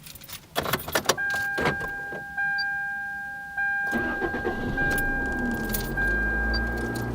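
Car keys and door clicks, then a car's electronic warning tone sounding steadily and renewing about every second. About four seconds in the engine starts and runs at idle.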